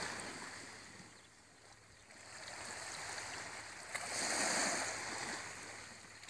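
Small waves lapping at the shoreline, the wash swelling and fading every couple of seconds.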